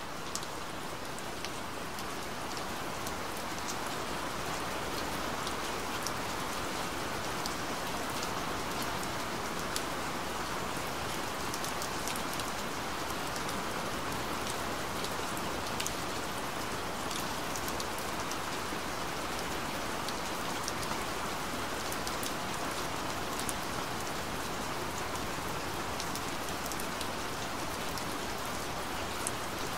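Recorded rain falling steadily: an even hiss with many small, sharp drop ticks scattered through it.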